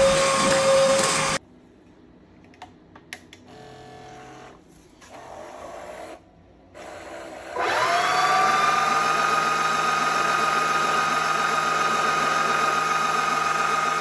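Bissell CrossWave HF3 cordless wet-dry vacuum running, cut off about a second and a half in. After a few quiet seconds with a few faint clicks, its motor starts again with a rising whine and settles into a steady whine while it stands in its storage tray.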